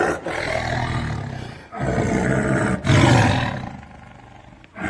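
Tiger roaring at close range: three long roars in quick succession, the third the loudest, dying away about a second before the end.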